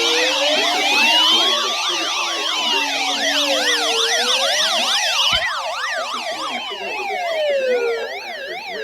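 Many electronic sirens sounding at once: a slow rising-and-falling wail layered over several fast yelping sweeps. They cut off abruptly near the end.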